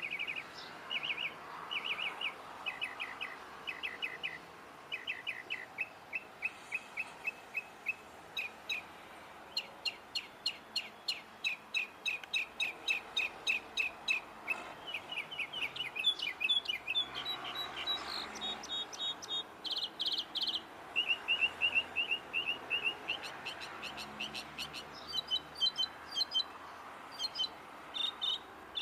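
A songbird singing a long, varied song: short notes repeated in quick runs, switching to a new phrase every few seconds.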